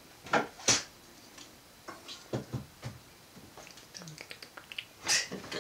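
Handling noise: a few sharp clicks and knocks, two loud ones about half a second in, then a run of softer clicks and a louder rustle near the end as a hand reaches close to the camera.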